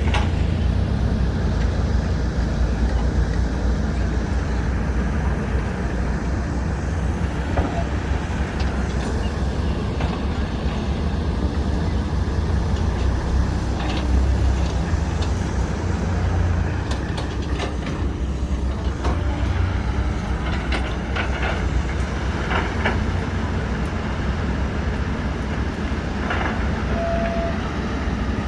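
Heavy diesel engines of an excavator and dump trucks running steadily with a deep rumble, and a few short knocks in the second half.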